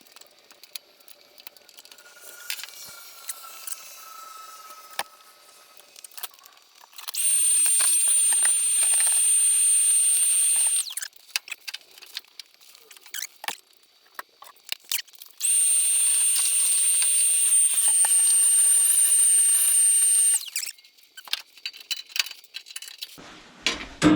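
A high-pitched tool run twice, for about four and then five seconds, giving a hissing whine with one steady high whistle on top. Between the runs come light handling clicks and rustles.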